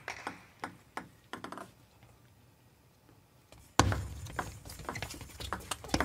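Sharp taps of a table tennis ball on rackets and table, a few at first, then after a quiet second or two the arena sound comes in louder about four seconds in, with quick ball hits of a doubles rally over steady venue noise.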